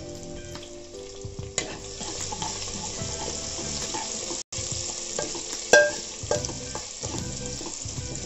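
Tempering of mustard seeds, cumin, dried red chillies, garlic cloves and curry leaves sizzling in hot oil in a pan. A spatula stirs it, scraping and tapping against the pan; the loudest knock comes about two-thirds of the way through.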